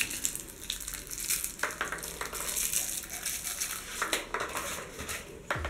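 Hands handling a cheap all-plastic toy airsoft pistol: a crackly plastic rustling, with scattered light clicks and a few sharper clicks.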